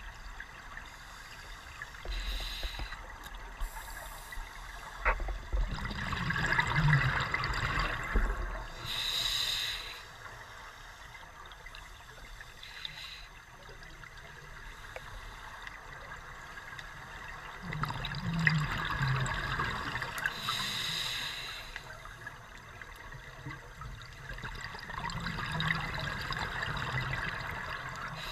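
Open-circuit scuba breathing underwater through a regulator: about three slow breaths, each a short hiss of inhaling followed by a longer bubbling rush of exhaled air.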